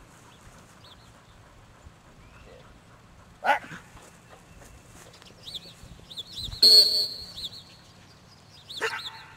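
One sharp blast on a dog-training whistle about two-thirds of the way through: the stop/sit signal to a retriever working away from the handler. A short vocal sound comes about a third in and another near the end, and birds chirp in the background.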